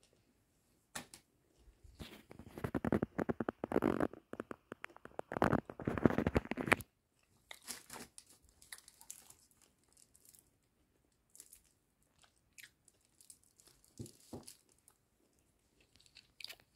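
Close-up chewing of a soft Bengali sweet, with wet mouth clicks and smacks. The chewing is loudest from about two seconds in to about seven, then turns fainter and scattered.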